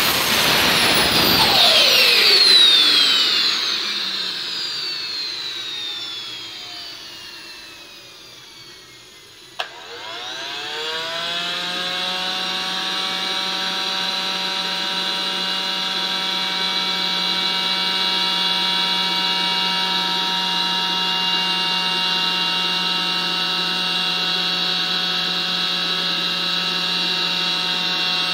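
JETPOL GTM100 micro turbojet shutting down: the turbine's whine falls in pitch and fades over about nine seconds as it spools down. A click follows, then a smaller electric-motor whine rises quickly and holds steady as the starter motor spins the engine over, typical of a micro turbine's post-shutdown cooling cycle.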